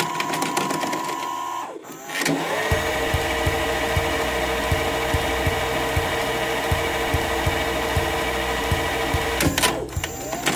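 Electronic music played in: a held synthesizer chord that slides up into pitch, breaks off, then returns over a steady bass beat. Near the end the chord slides away.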